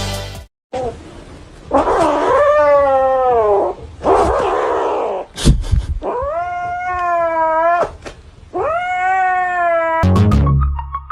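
A cat yowling: three long, drawn-out, wavering calls with pauses between them. Electronic music cuts in near the end.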